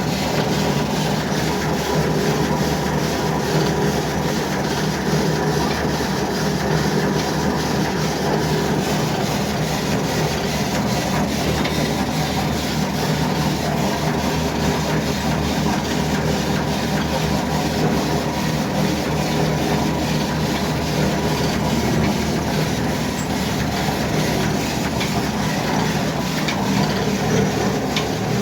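Oil expeller machine running: a steady mechanical drone with a low hum, unchanging throughout.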